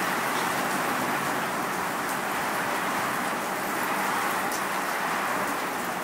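Wind-driven rain shower: a steady hiss of rain and wind that swells gently, with a few faint drops ticking over it.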